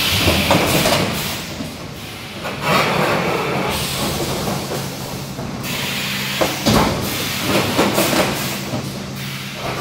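3D EPS panel wire-welding machine at work: repeated bursts of compressed-air hiss from its pneumatic cylinders, with a few sharp mechanical knocks over a steady low hum.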